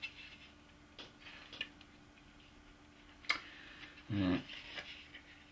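Light clicks and taps of a TV power supply circuit board being handled and turned over, the sharpest a little after three seconds in, followed by a brief low sound about four seconds in, over a faint steady hum.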